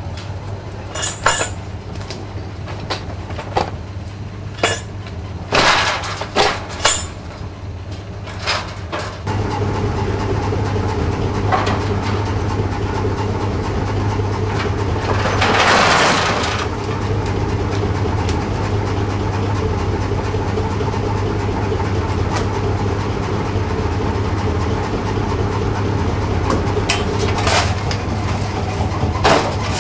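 A hand-pushed narrow-gauge mine tub clanking and knocking on its rails, then a steady machine hum as the rotary tipper runs, with a rush of spoil tumbling out of the tipped tub about halfway through. A few more clanks near the end.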